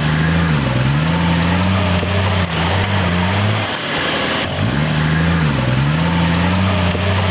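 Off-road 4x4 engines running, mixed with background music whose low bass melody repeats the same dipping phrase about every four and a half seconds.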